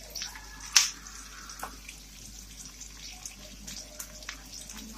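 Garlic, onion and tomato sautéing in hot oil in a frying pan, sizzling with scattered crackles and a sharper click about a second in, as a wooden spatula stirs them.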